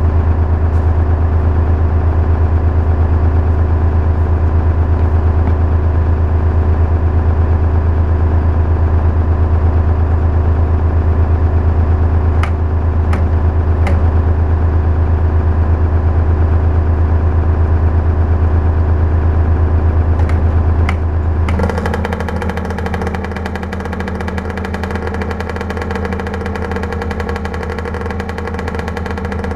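A cold 1978 Suzuki PE 175 single-cylinder two-stroke dirt bike is being kick-started, with a few sharp clicks along the way. About three quarters of the way through it catches and settles into a steady idle. Before it starts, another engine runs steadily in the background.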